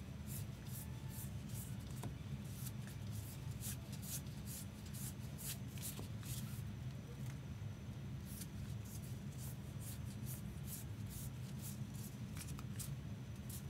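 Trading cards flipped through by hand, one card sliding off the stack after another, giving short papery flicks at roughly two to three a second, over a steady low hum.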